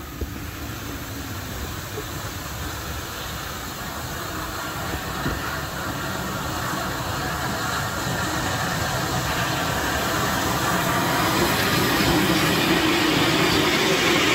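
Rebuilt Bulleid Battle of Britain class Pacific steam locomotive No. 34059 approaching on the adjacent track and drawing alongside, its running noise growing steadily louder.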